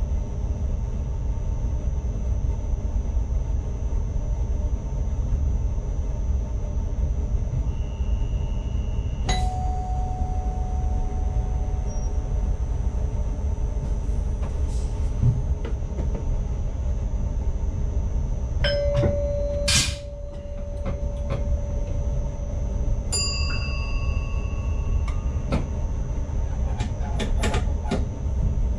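ICMm intercity train heard from the driver's cab while running, a steady low rumble of motors and rails. Short electronic beeps and chime tones from the cab equipment sound about a third of the way in, again around two-thirds through, and in a cluster with clicks near the end.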